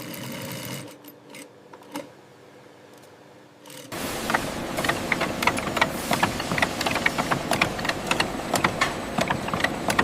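Machinery clattering: a quiet steady hum with a single click, then about four seconds in a sudden change to loud busy mechanical noise full of rapid, irregular clicks and ticks.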